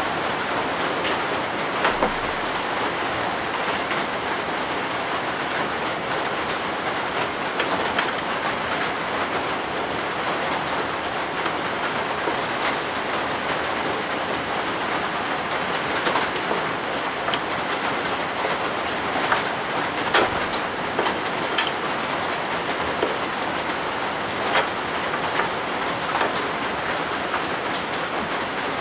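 A steady rushing noise with scattered light clicks and taps of small metal tools and parts being handled on a steel-topped workbench.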